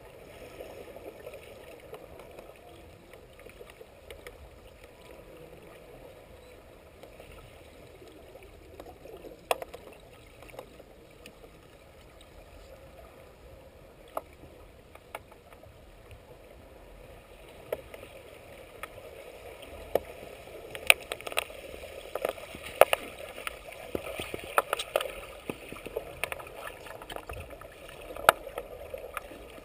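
Underwater pool sound during an underwater hockey game: a steady muffled wash of water noise with sharp clicks and knocks of sticks and puck on the tiled floor, scattered at first and coming thick and fast about two-thirds of the way through.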